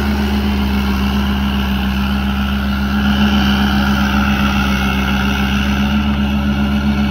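Fiat 640 DT tractor's four-cylinder diesel engine running steadily under load while pulling a reversible plough through the soil.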